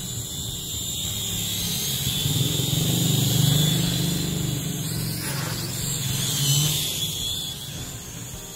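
Small Chinese Mavic-lookalike toy quadcopter flying low, its motors and propellers buzzing with a steady high whine. The sound swells as it comes close about three to four seconds in, then fades as it flies away.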